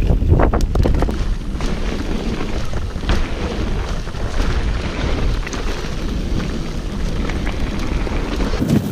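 Wind buffeting an action camera's microphone as a mountain bike descends a trail, with a steady low rumble of tyres and frame. A few sharp rattles come in the first second, with fainter ones scattered after.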